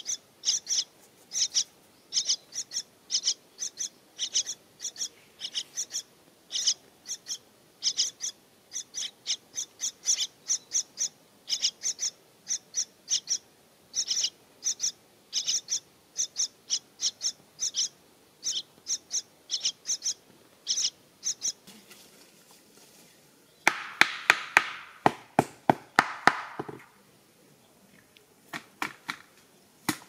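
Parrot nestlings in a tree hollow chirping to beg for food, with short high calls coming two or three a second. About three-quarters of the way in, the chirps give way to a louder burst of rapid clicking and rasping that lasts a few seconds.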